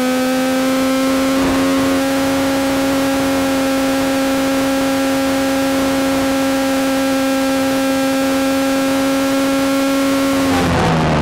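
Formula S racing car's Saab two-stroke engine running at high, steady revs under heavy wind noise, the pitch creeping up slightly early on and then holding. Near the end the revs drop sharply as the driver comes off the throttle.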